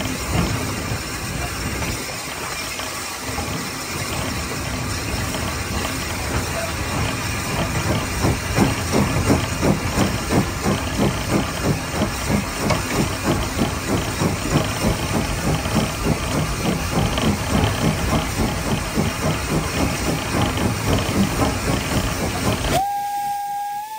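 Victorian LSWR T3 class 4-4-0 steam locomotive 563 working a train, its exhaust beats turning into a quick, regular chuffing with steam hissing. Near the end the locomotive's steam whistle sounds one steady note.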